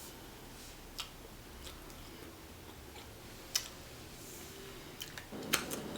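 Snow crab being eaten: quiet chewing with a few sharp clicks and cracks of crab shell, one about a second in, one past the middle and a quick cluster near the end.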